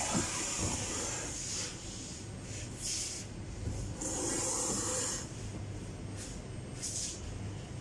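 Bursts of hissy rubbing noise: a long one at the start, short ones about three and seven seconds in, and another long one about four seconds in, over a faint low hum. The noise fits a handheld phone being handled and repositioned.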